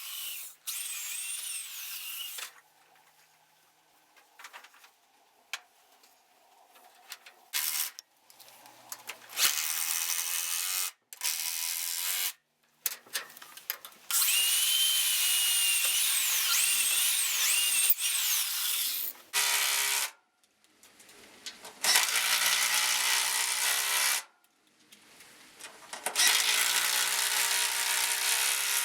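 Power drill driving screws into wood in about eight on-and-off bursts, the longest lasting about four seconds, with short pauses between them; its motor whine wavers in pitch as the load changes. It is fastening hinges to a wooden stall door.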